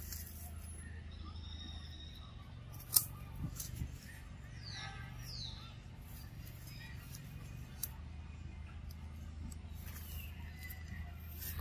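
Macaques play-fighting on dry leaf litter: faint rustling, a sharp snap about three seconds in, and a few high squeaks gliding downward near the middle, over a steady low hum.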